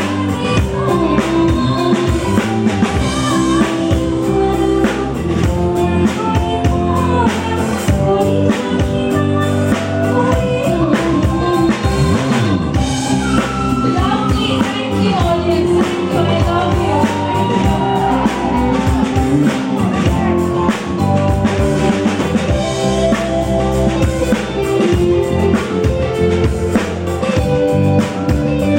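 Live band music with a woman singing over a drum kit and other instruments, at a steady beat.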